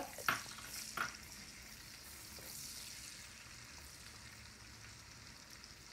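Diced onions sizzling faintly in bacon and sausage drippings in an enameled Dutch oven as they are stirred with a slotted spoon. There are two light knocks of the spoon against the pot in the first second.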